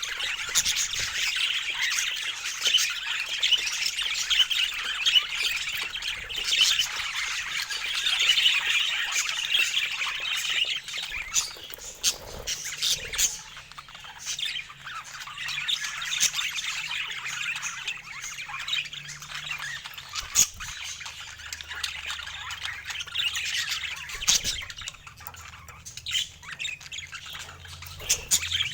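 Pet parakeets chattering continuously, with sharp squawks and chirps throughout.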